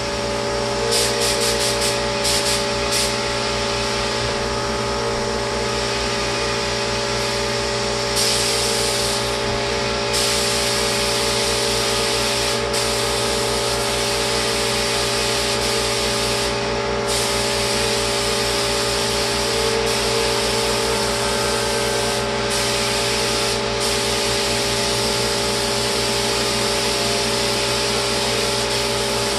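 Lacquer spray rig in use: its motor runs with a steady hum while the hose-fed spray gun hisses as lacquer is sprayed, the hiss breaking off briefly several times as the trigger is released.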